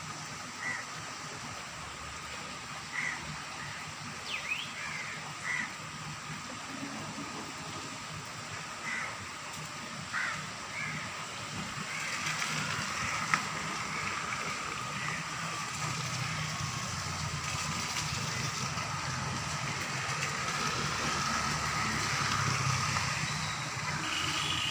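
Steady hiss of rain with short bird calls scattered through the first half. From about halfway a low rumble builds and grows louder, with one sharp click a little after it starts.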